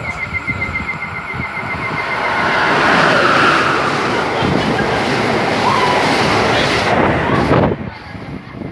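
Electric passenger train passing through the station: the rushing noise builds over the first few seconds, holds loud, then drops off sharply near the end.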